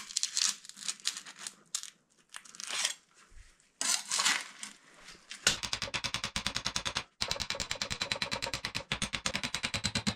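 Crumbling and scraping as a pressed block of wet sawdust and wood chips is worked loose from a metal mould. About halfway through, a fast, even run of knocks begins, about ten a second, and keeps going.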